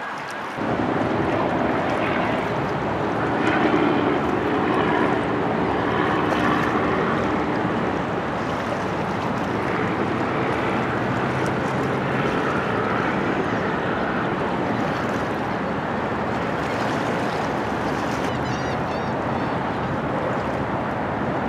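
Steady outdoor wind and waterfront background noise, with a low hum in the first several seconds and a few faint high chirps near the end.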